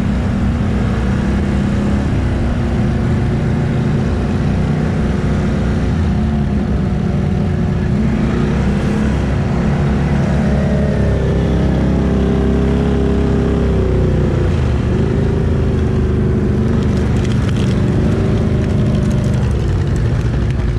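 ATV engine running under way, its revs rising and falling as the throttle changes.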